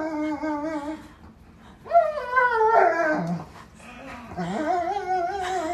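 A dog whining in three long, wavering, high-pitched cries with short breaks between them: excited whining while waiting for someone to come through the door.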